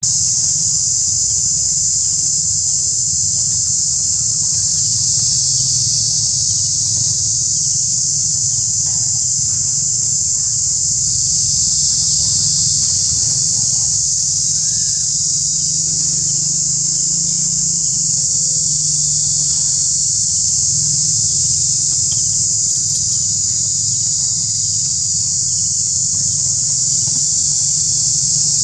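A steady, shrill insect chorus droning without a break, with a low rumble underneath.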